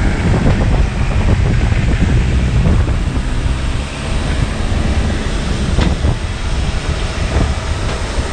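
Wind buffeting the microphone in a loud, uneven rumble, over the steady noise of a parked airliner's engines.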